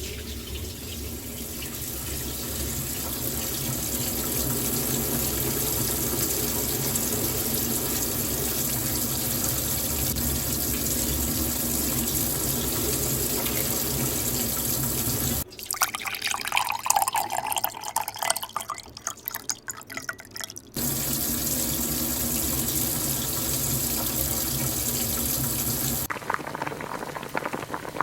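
Kitchen tap running steadily into a sink, broken for about five seconds in the middle and again near the end by irregular clicks and clatter.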